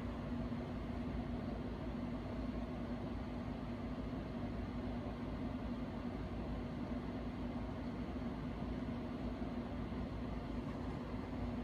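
Steady background hum: one constant low tone over an even hiss, unchanging throughout with no distinct knocks or movements.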